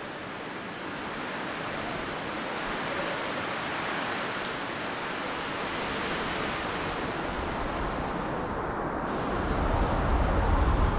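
A steady rushing noise that swells gradually, with a deep rumble building in over the last few seconds.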